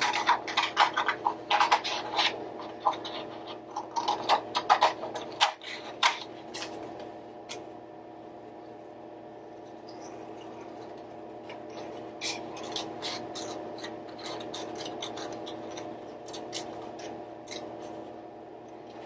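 Scissors snipping through construction paper to cut out a small curved piece. A dense run of quick snips fills the first six seconds or so, then fainter, scattered snips follow.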